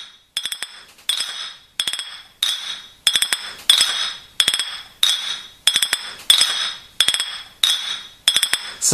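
A cup being tapped with a metal utensil in a steady rhythm, about three clinks every two seconds, each clink ringing briefly before the next.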